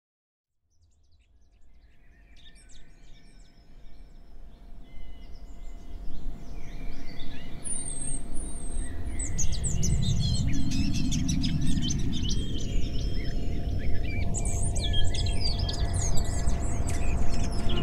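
Birdsong, many short chirps and calls, fading in from silence over the first few seconds above a low rumble. The recording is run through a slowly rising sweeping filter, a processed field recording used as part of a music piece.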